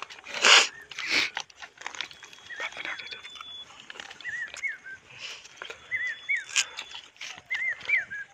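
A person eating rice by hand: chewing and wet mouth smacks, loudest twice in the first second or so, with fingers clicking and scraping against a steel plate. Birds call in the background with short rise-and-fall chirps in twos and threes.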